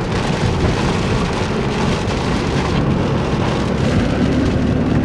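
Steady rain beating on a car, heard from inside, with a low rumble underneath.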